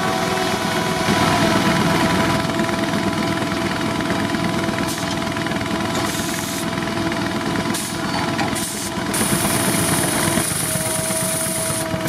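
Steam-powered circular sawmill running: a Case steam traction engine driving an old Frick mill by belt, making steady, loud machinery noise.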